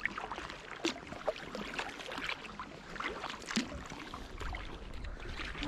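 Kayak paddling on calm water: short, irregular splashes and drips from paddle strokes, with water lapping at the hull.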